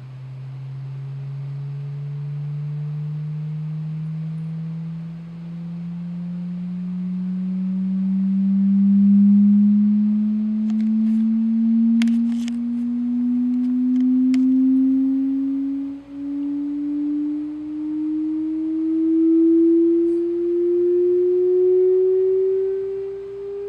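Hearing-test sine tone played through computer speakers, a low hum that climbs slowly and steadily in pitch. A few brief faint clicks come about halfway through.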